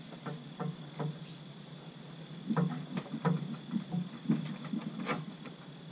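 Irregular knocks and clunks, bunched between about two and a half and five seconds in, as a longtail mud motor's drive shaft is twisted and pulled out of its PTO housing.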